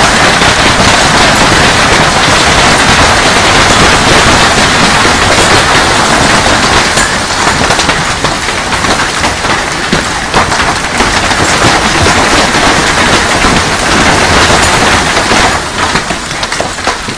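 Heavy hailstorm: a loud, dense rush of hailstones pelting the yard and a swimming pool, with many sharp clacks of single stones striking hard surfaces. It eases a little near the end.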